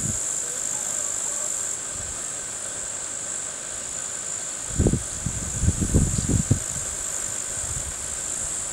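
Steady high-pitched buzzing drone of insects singing in the summer heat, unbroken throughout. About five seconds in, a cluster of loud low rumbling bumps lasts a second and a half.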